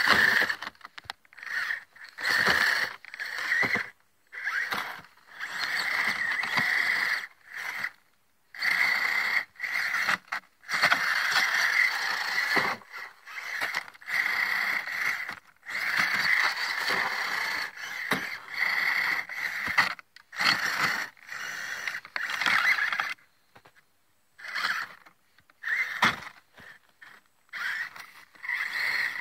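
The electric motor and geared drivetrain of a Redcat Barrage Gen2 RC crawler whining in short throttle bursts, stopping and starting every second or two as it crawls through snow.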